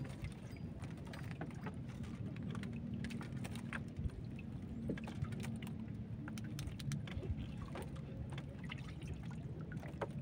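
Water lapping and trickling around a small boat, with many scattered light clicks and knocks as a fishing handline is pulled in and handled, over a low steady hum.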